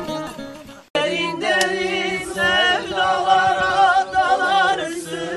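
A song with guitar and voice cuts off about a second in. Then a group of men and women sing together unaccompanied.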